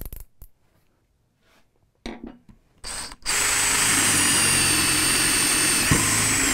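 A cordless drill boring a 3/8-inch spade bit into a thick block of wood. A few clicks and handling noises come first, then from about halfway a steady high motor whine over the rasp of the bit cutting, with a single knock near the end.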